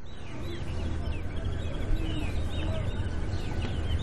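Background bird calls, many short chirps repeating quickly, over a low steady rumble.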